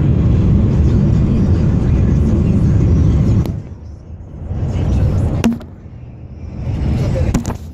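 Wind and road noise of a moving car, heard from inside the cabin. It is loud for the first three and a half seconds, then drops to a quieter rumble that swells and fades, with a few sharp clicks near the end.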